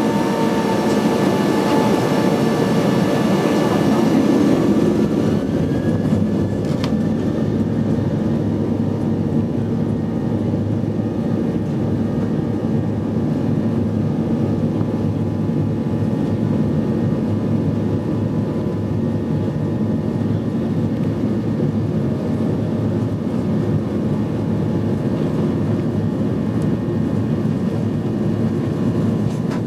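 Boeing 737-800's CFM56 jet engines heard from inside the passenger cabin as the airliner rolls along the runway: a steady loud rumble with thin whining tones above it. A whine rises in pitch about five seconds in.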